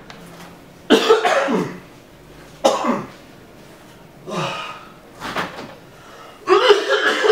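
A man coughing and gagging in about five short fits, as if about to vomit; the last fit is longer and starts near the end.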